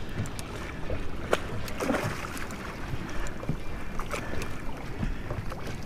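Choppy water slapping against a small boat's hull on a rough sea, with scattered irregular knocks and clicks.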